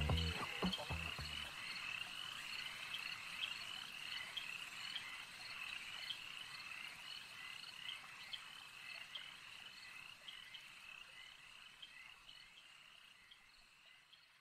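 A chorus of frogs calling in short repeated croaks, roughly two a second, over a faint hiss, fading out slowly to near silence. The last second or so of music is heard at the very start.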